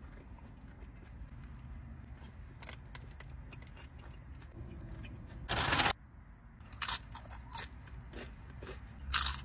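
Close-up biting and chewing of a crunchy birria taco: one loud crunch about five and a half seconds in, then a few shorter crunches near the end, over a low steady hum.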